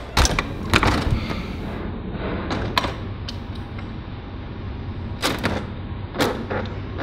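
Heavy glass-paneled doors being pushed open and swinging to: a string of irregular clunks and knocks from the door hardware and frames, over a steady low hum.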